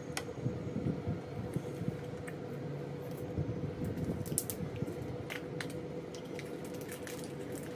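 A person chewing chocolate with soft squishy mouth sounds, with scattered small clicks and crinkles from the foil wrapper of a chocolate egg being handled and peeled, over a faint steady hum.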